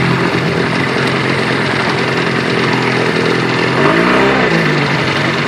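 Mercury 25 hp outboard motor running steadily at speed, pushing a 14 ft skiff, over the rush of water from the wake. About four seconds in its pitch briefly dips and climbs back.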